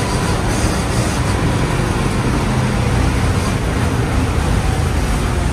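Old city bus driving, heard from inside the cabin: a loud, steady engine drone mixed with road and wind noise.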